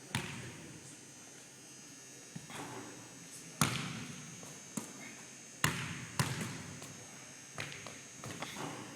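A basketball bouncing on a hard court: about eight separate thuds at uneven intervals, the loudest a little over three and a half seconds in and near six seconds in.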